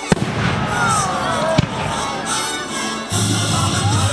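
Fireworks going off: sharp bangs just after the start and again about a second and a half in, with gliding whistles and crackle between them. Music plays underneath, its bass coming in strongly near the end.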